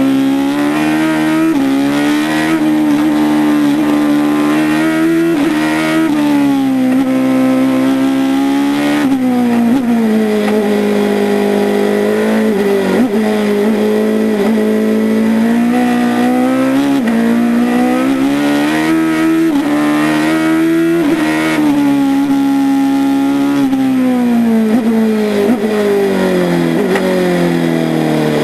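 Wolf GB08F1 race car's engine, recorded onboard, revving hard through the gears. Its pitch climbs under acceleration, drops at each upshift and jumps between changes through the bends. In the last few seconds the revs fall steadily as the car slows.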